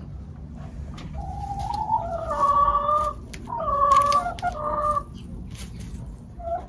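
Hen giving two long drawn-out calls, each lasting a couple of seconds, then a short call near the end, while an egg is laid in the nest box.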